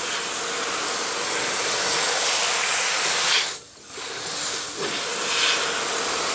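Garden hose spray nozzle hissing as its jet of water washes concentrate out of the spiral riffles of a Neffco centrifuge bowl. The spray stops briefly a little past halfway, then starts again.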